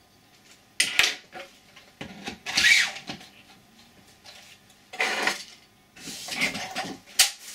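Handling noise from a 3D-printed plastic airsoft replica being fitted together: several short scrapes and clicks of plastic parts, with a sharp click near the end.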